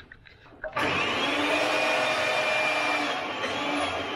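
Electric rebar bender starting up about a second in and running with a steady motor whine as it works a steel bar.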